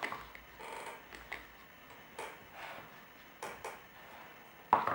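Scattered light clicks and taps of plastic toy pieces and Play-Doh tools being handled, with a sharper click near the end.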